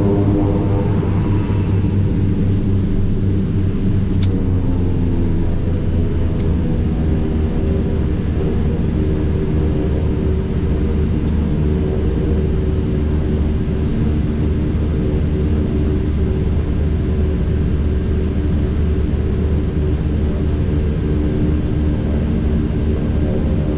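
Twin Pratt & Whitney PT6A turboprop engines and propellers of a King Air A100 droning in the cockpit, a steady multi-tone hum over a low rumble. The pitch of the hum shifts during the first few seconds, then holds steady.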